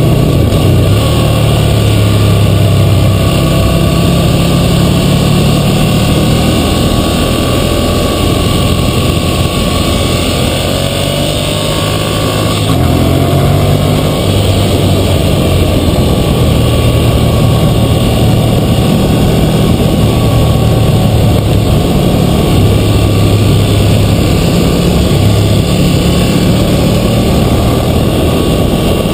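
2012 Ducati Monster 1100 EVO's air-cooled L-twin engine running under way, its note stepping up and down with throttle and gear changes, over a steady rush of wind noise.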